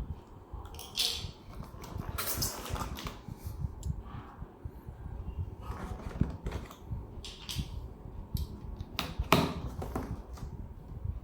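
Cardboard box and packaging being opened and handled: irregular rustling, scraping and small clicks, with one sharp knock about nine seconds in.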